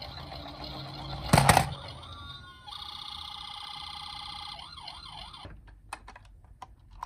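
Electronic siren from a toy emergency-vehicle minicar's built-in sound unit, warbling, interrupted by a loud clatter about a second in, then sounding again and switching to a fast up-and-down yelp before cutting off suddenly; a few faint clicks follow near the end.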